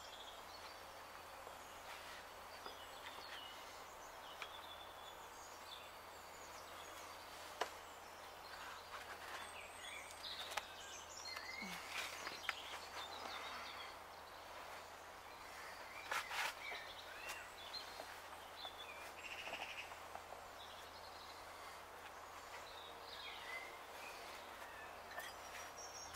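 Faint outdoor ambience with scattered short bird chirps over a steady low hiss, and a few soft clicks, the clearest about 16 seconds in.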